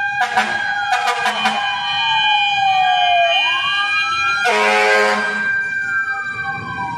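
Fire truck siren wailing, its pitch slowly falling, rising and falling again, as the truck drives past. Several short horn blasts sound in the first second and a half, and a loud horn blast lasting about a second comes about four and a half seconds in.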